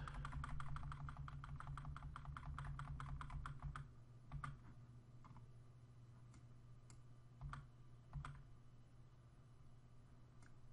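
Computer keyboard keys tapped quickly and evenly, about eight times a second, for the first four seconds. After that come a few separate key presses spaced a second or so apart.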